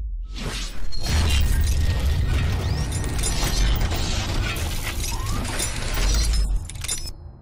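Logo-reveal sound effects: a short whoosh, then a sudden heavy hit about a second in, followed by mechanical clanking and shattering over a deep bass rumble that drops away sharply near the end.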